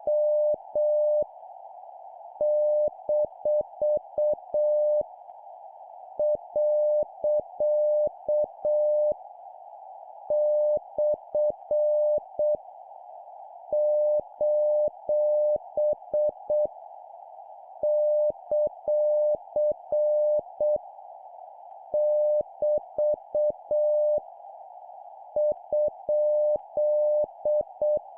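Morse code (CW) practice tone at 7 words per minute: a single steady-pitched beep keyed in dots and dashes, sending punctuation marks one group at a time with a pause of about a second between groups. A steady hiss runs under the beeps.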